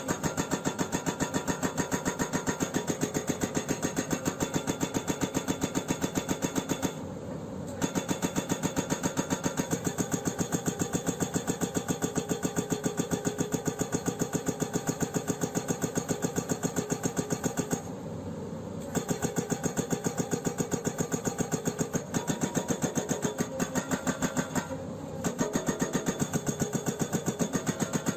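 Excavator-mounted hydraulic breaker hammering rock in a fast, even rhythm of about six blows a second, stopping briefly three times, at about 7, 18 and 25 seconds in. During those short pauses the Hyundai 210LC-7H excavator's diesel engine is heard running underneath.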